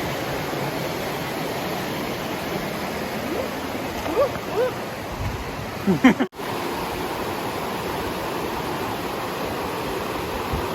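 Rushing river water, a steady noise from the rain-fed stream. The sound cuts out for an instant about six seconds in.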